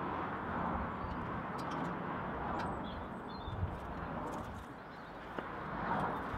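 Steady outdoor background noise, with a few faint chirps and small clicks.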